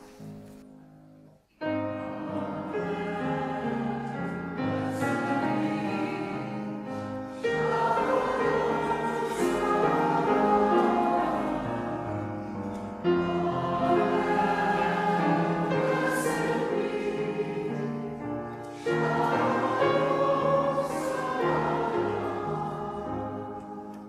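A choir singing, coming in suddenly about a second and a half in and stepping up in loudness a few times.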